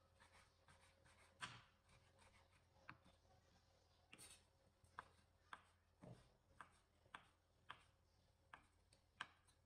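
Kitchen knife slicing soaked mushrooms on a wooden cutting board: faint knocks of the blade hitting the board, a few spaced out at first, then about two a second.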